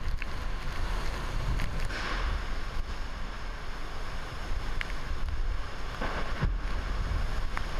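Super-typhoon wind blowing hard with wind-driven rain, buffeting the microphone with a deep rumble, as the eyewall moves away. A few short sharp knocks sound through it.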